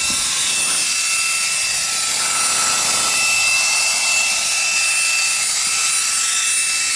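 Reikiya HV-C11 cordless handheld vacuum running steadily: a high motor whine over the hiss of rushing air.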